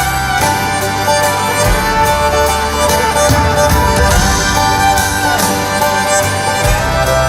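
A live country band plays an instrumental break between sung verses: a fiddle leads over guitar, with a steady drum beat.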